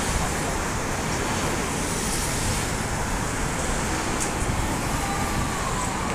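Steady roadside traffic noise from cars passing close by on a busy city street, with a faint high squeal about five seconds in.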